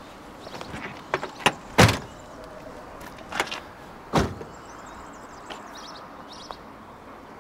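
Car doors being handled: light clicks of handles and latches, then a heavy door slam about two seconds in and another about four seconds in, the first the louder.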